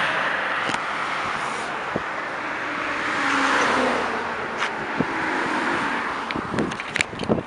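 Road traffic: a car passes close by, its tyre and engine noise swelling and then fading, with sharp knocks on the microphone near the end.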